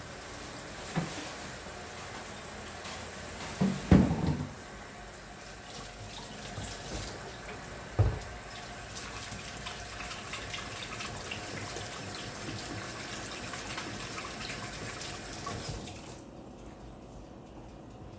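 Kitchen tap running into a sink, with a few knocks of a small pan against it, the loudest about four seconds in. The water shuts off sharply near the end.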